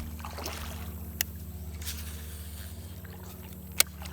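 Creek water running steadily, with two sharp clicks about two and a half seconds apart.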